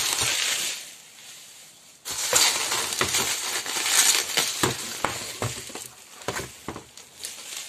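Plastic bubble wrap crinkling and crackling as hands rummage through it in a cardboard box, with sharp clicks and light knocks of plastic cosmetic bottles. After a short burst at the start and a brief lull, the crinkling picks up again about two seconds in.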